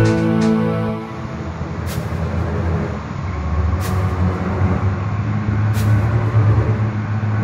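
Heavy vehicle engine running steadily at a low rumble after music fades out in the first second, with brief sharp sounds about two, four and six seconds in.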